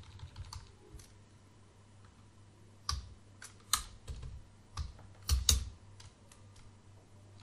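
Computer keyboard keystrokes: scattered single key presses a second or so apart, with a quick louder pair about five and a half seconds in. These are the sparse presses of editor commands cutting and moving lines of code, not continuous typing.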